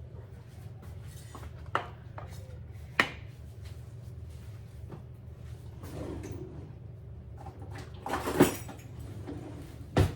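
Kitchen clatter of dishes and utensils being handled: four sharp knocks, the loudest a longer clatter about eight seconds in, over a steady low hum.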